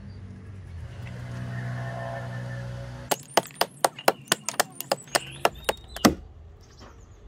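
A steady low hum, then from about three seconds in a quick run of about a dozen sharp axe blows biting into wood, about four a second, the last one the loudest. Faint bird chirps between the blows.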